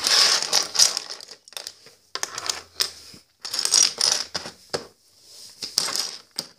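Loose plastic Lego bricks clattering and clicking against each other and the tabletop as a hand rummages through a pile, in several short spells.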